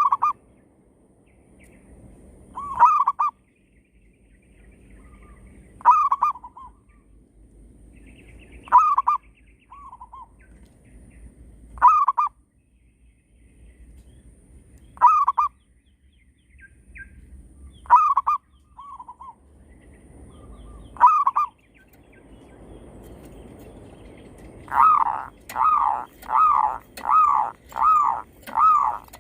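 Zebra doves (perkutut) cooing: a short call about every three seconds, some answered by a fainter note, then a rapid run of about eight cooing notes near the end.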